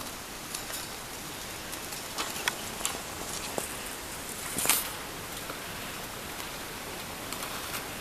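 Footsteps crunching on loose gravel and stones over a steady hiss, with scattered clicks and small scrapes. About halfway through comes the loudest sound, a short clatter as a wire birdcage with a plastic base is set down on the stones.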